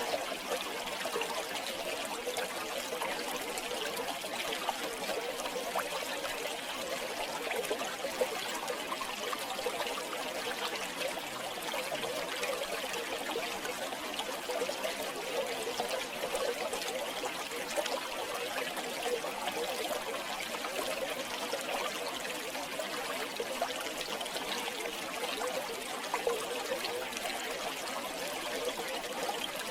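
River water flowing and burbling over rocks, a steady rushing with small splashes.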